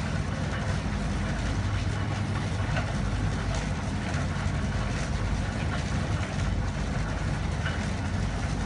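An engine running steadily at an even speed, a low constant hum with a few faint light clicks over it.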